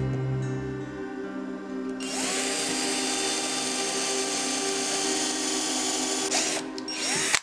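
Small power drill spinning up about two seconds in and boring through a square of thin fibreboard, its motor whine dipping and rising again briefly near the end.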